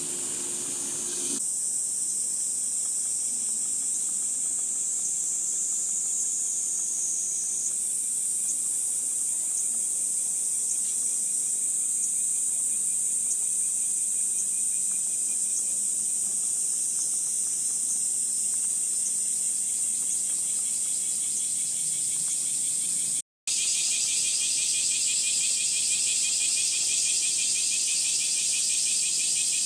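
Cicadas singing in a steady, high-pitched chorus. After a brief cut near the end, a louder cicada chorus with a pulsing texture and a wider spread of pitch.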